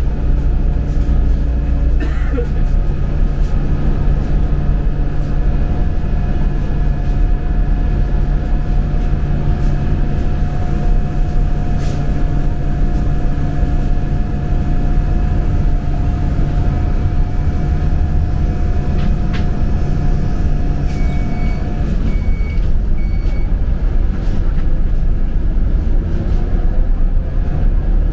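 Steady low rumble of a Transjakarta city bus running, heard from inside, with a steady whine that drops out about three quarters of the way through. A quick run of short high beeps comes around the same point.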